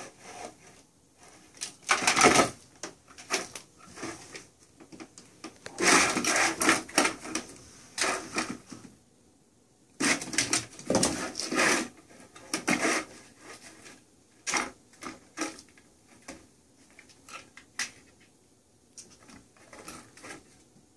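Plastic circular track cat toy rattling and clattering as cats bat the mouse around inside its track, in irregular bursts with quiet gaps between.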